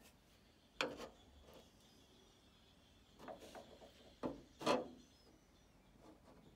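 Light knocks and scrapes of a steel rule being handled and set against thin aluminum elevator skin on a wooden board: two knocks about a second in, a softer flurry a little past three seconds, and two sharper knocks between four and five seconds, the last the loudest.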